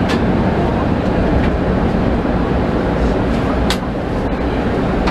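Penang Hill Railway funicular car running on its track: a steady low rumble of wheels on rail, with a sharp click at the start and another just under four seconds in.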